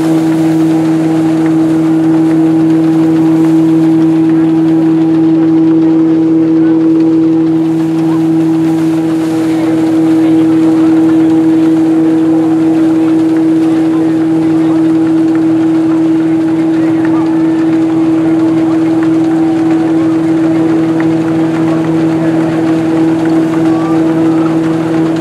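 Vintage wooden threshing machine running at a steady speed, its belt-driven drum giving an even, unchanging hum.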